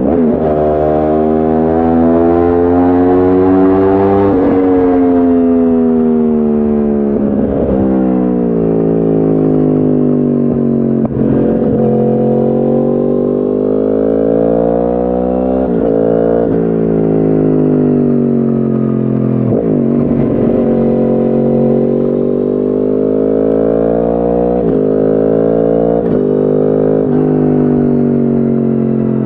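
2010 Yamaha R1's crossplane inline-four running through a decat Akrapovic exhaust while being ridden, its pitch climbing and falling again and again with short breaks between pulls, as through gear changes.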